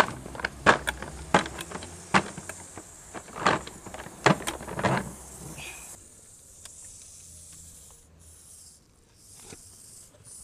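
High, thin whine of a homemade 1:64-scale micro RC crawler's tiny electric motor and gearbox, with sharp clicks and knocks through the first half as it crawls over a cast-iron storm drain grate. The second half is quieter, with the whine cutting out briefly several times as the crawler climbs over a rock.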